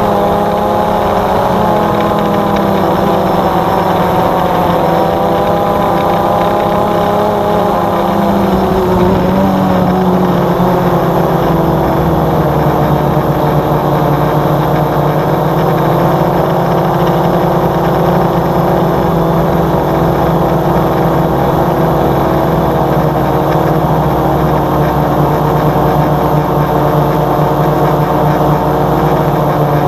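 Multirotor drone's motors and propellers whining steadily. The pitch wavers for the first several seconds and then holds steadier.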